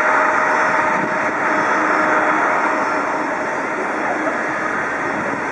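Jet airliner's engines running at taxi power: a steady rushing hum with a faint, steady whine, easing slightly as it goes.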